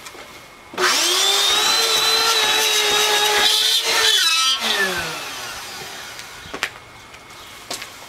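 Bissell PowerForce upright vacuum cleaner's motor switched on about a second in, running with a steady high whine for about three seconds, then switched off and winding down, its pitch falling.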